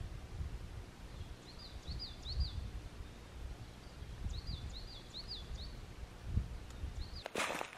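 A small songbird singing two short phrases of quickly repeated high notes over a low rumble of wind. Near the end, footsteps start crunching in dry fallen leaves.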